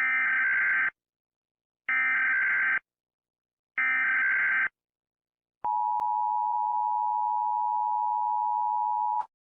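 Emergency Alert System tones: three short bursts of SAME header data, each just under a second long and about a second apart, then the two-tone attention signal (853 and 960 Hz together), held steady for about three and a half seconds before cutting off sharply. This sequence announces that an emergency alert message follows.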